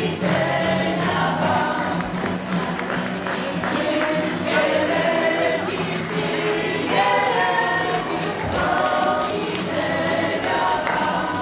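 A group of voices singing a folk song together, over a steady instrumental accompaniment and rhythmic jingling percussion.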